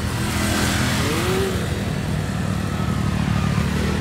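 Motorcycle engines running on the road, with wind rushing over the microphone. One engine revs up briefly about a second in.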